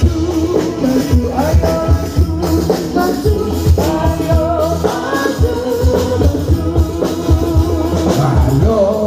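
Live devotional music: several voices singing into microphones over steady rhythmic hand percussion, amplified through stage loudspeakers.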